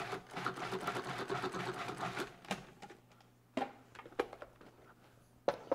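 Countertop food processor motor running for about two seconds, blending chopped mint into a cream cheese and radish dip with its blade. This is followed by a few sharp separate clicks and knocks as the machine is handled.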